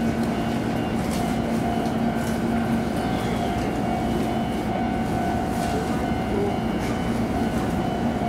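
Electric commuter train running between stations, heard from the front of the car: a steady rumble of wheels on rail with a steady hum from the traction drive and a few faint clicks.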